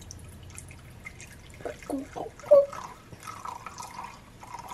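Sherry poured from a bottle into a measuring cup: several gurgling glugs about two seconds in, then a steadier trickling pour.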